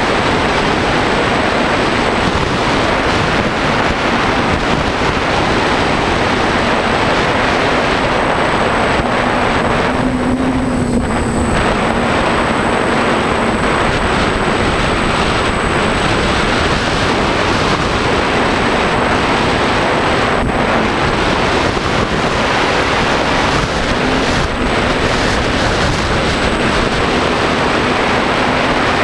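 Loud, steady wind noise buffeting the microphone of the camera on a DJI F550 hexacopter in flight, with a faint wavering hum of the motors beneath; the craft is struggling against strong gusts.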